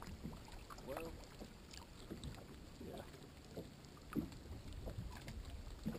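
Quiet ambience on a bass boat: a steady low rumble of wind and water lapping against the hull, with a few faint clicks.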